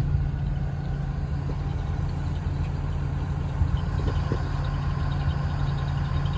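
Combine harvester engine running at a steady, even drone.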